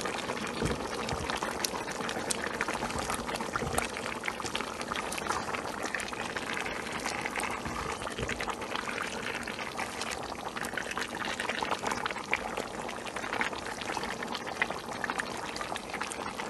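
A pot of potato porridge simmering: the thick tomato sauce bubbles and crackles steadily while a wooden spatula stirs through the potatoes and broccoli.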